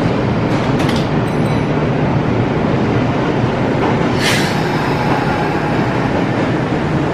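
Kintetsu electric train standing at the platform, its onboard equipment giving a steady hum, with a short hiss about four seconds in.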